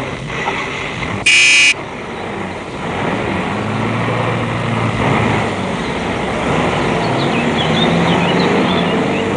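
A car horn gives one short toot about a second and a half in. Then comes the steady low running of car engines idling, which grows a little louder partway through.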